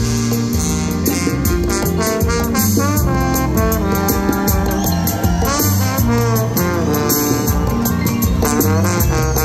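Live band playing, with a trombone taking a solo line that slides and shifts in pitch over the rest of the band.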